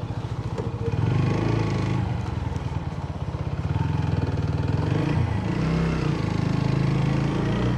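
Motorcycle engine running at low speed, a rapid even putter that gets louder about a second in.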